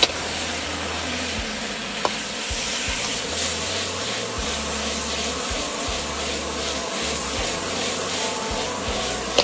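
Ginger, garlic and chillies sizzling in hot oil in a pan, stirred with a spatula that scrapes the pan; a light click about two seconds in.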